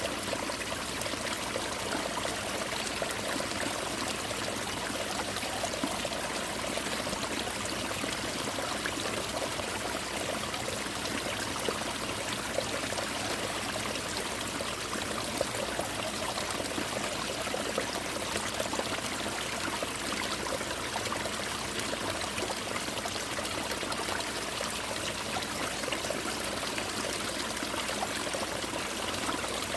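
Winter mountain-stream water pouring over ice-covered rocks: a steady rush with many small splashes and trickles, falling like rain.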